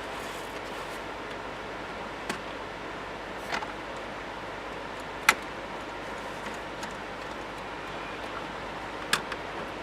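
Hand work on car interior hardware: a few separate sharp clicks and taps over steady background noise, the loudest about five seconds in.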